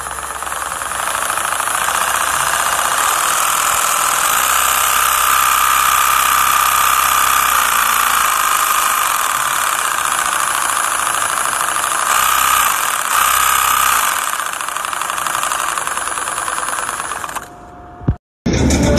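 A cut-open engine block with its pistons and crankshaft turning over fast, giving a steady, loud mechanical running noise with a faint higher whine partway through; it cuts off suddenly near the end.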